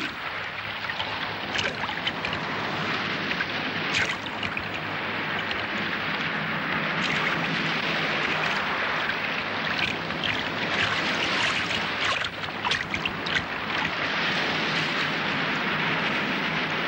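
Sea water lapping and splashing around a small dinghy, with sharper splashes about four seconds in and several more in the second half, over a low steady hum.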